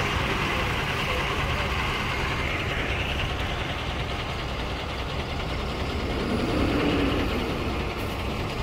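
Truck engine running steadily, a continuous low rumble with road noise.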